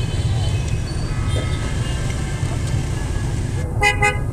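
A motorbike horn beeps twice in quick succession near the end, over a steady low rumble of street traffic.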